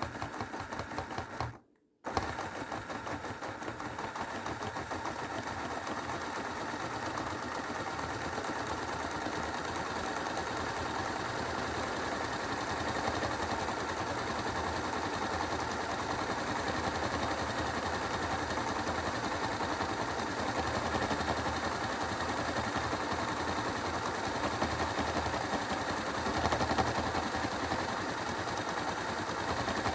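Hoover washing machine running its rinse and spin programme: steady mechanical running with a fast rattle. It cuts out briefly just before two seconds in.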